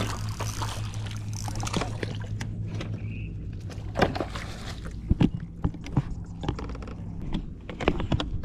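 A bass being landed beside a plastic kayak: water splashing and a string of sharp knocks from the landing net and gear against the hull. A steady low hum runs under the first half and stops about halfway through.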